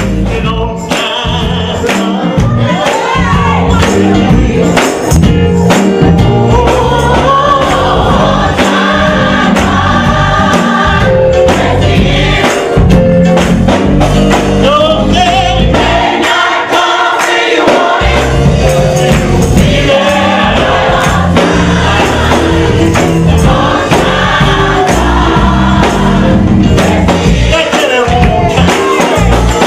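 Gospel music: a choir singing over a band with a strong bass line and a tambourine keeping the beat. The bass drops out briefly about halfway through, then comes back in.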